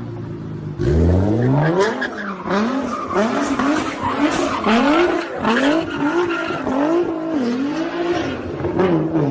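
A car engine revs hard about a second in, then its pitch swells up and down again and again, about three times every two seconds, over tyre skidding noise.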